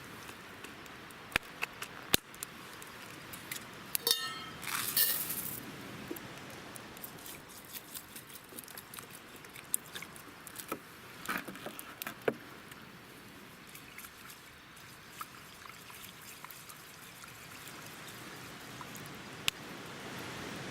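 Camp cookware clinking with short ringing tones. About four to five seconds in comes a brief pour of liquid, and scattered light clicks and knocks of utensils follow.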